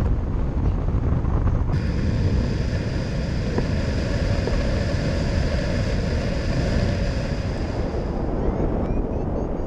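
Wind rushing and buffeting over the microphone of a camera mounted on a hang glider in flight. Faint steady tones sit above the rush from about two seconds in until near the end.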